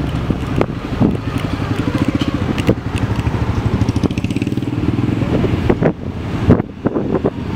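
A dirt bike's engine running in a steady, even pulse, mixed with wind buffeting the microphone and scattered knocks.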